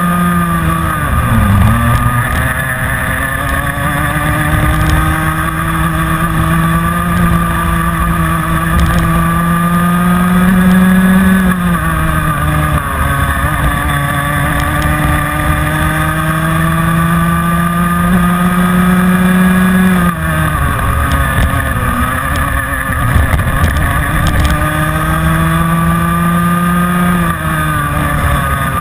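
Rotax Mini Max 125cc two-stroke kart engine heard from on board at racing speed, its pitch climbing steadily as the kart accelerates down each straight. The pitch drops sharply as the driver lifts off for a corner, right at the start, about twelve seconds in, about twenty seconds in and near the end.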